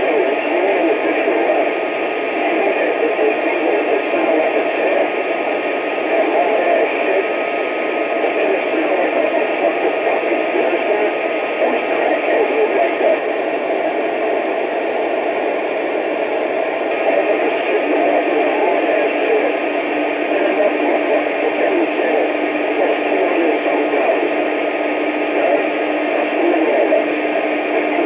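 Two-way radio receiver playing a continuous band-limited rush of static and garbled interference, with warbling traces like scrambled voices. A steady hum-like tone joins in about eighteen seconds in.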